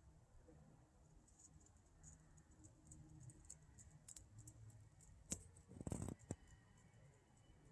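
Near silence, broken by faint scattered ticks. A little over five seconds in there is a sharp click, then a short noisy rustle-like burst and one more click.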